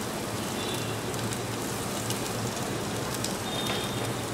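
Chopped garlic sizzling in hot oil with mustard seeds in a stainless steel saucepan: a steady frying hiss with a few faint crackles.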